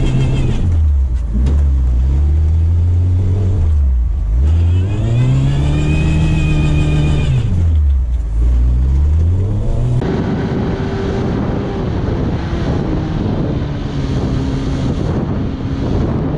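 Suzuki SJ410's small four-cylinder engine revving up and down, its pitch climbing and falling in two long swells. About ten seconds in the sound changes abruptly to a steadier, noisier engine sound.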